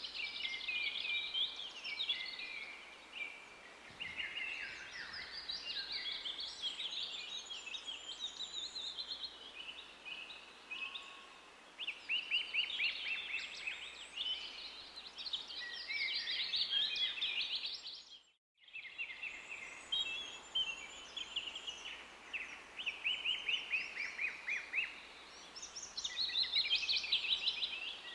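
Small songbirds singing in a continuous chorus of rapid chirps and trills, with a short break about two-thirds of the way through.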